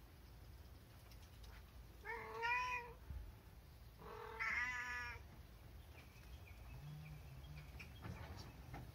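Cat meowing twice: two drawn-out meows, each just under a second long and about two seconds apart, the first rising and then falling in pitch.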